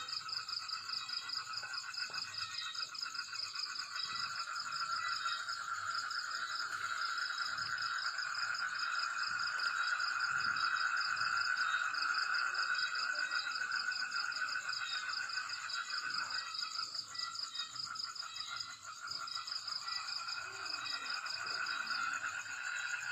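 Night chorus of crickets and frogs: several steady, overlapping trills at different pitches. The lowest-pitched trill swells in the middle and dips a few seconds before the end.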